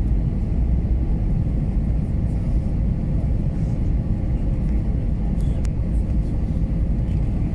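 Steady low rumble inside an Airbus A321neo cabin: engine and airflow noise of the airliner, with a faint steady hum and a short tick about five and a half seconds in.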